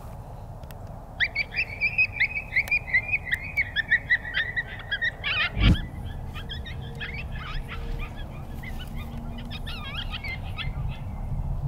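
A quick run of high coyote-style yips and yelps, about four a second and falling a little in pitch, then a looser, more ragged string of yelps. A single sharp thump about halfway through is the loudest sound.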